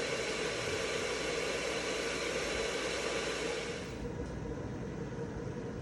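Stariver electric kettle heating a full load of water nearly to the boil: a steady rushing hiss. About four seconds in the hiss turns duller and slightly quieter.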